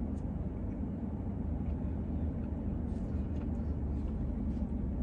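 Steady low rumble of a car idling, heard from inside its cabin, with a few faint small crackles from a biscuit being broken apart.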